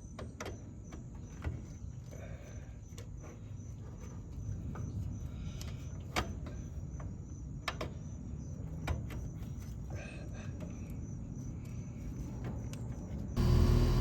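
Low rumble with scattered light clicks and taps. Just before the end a much louder steady hum with several pitched tones cuts in abruptly.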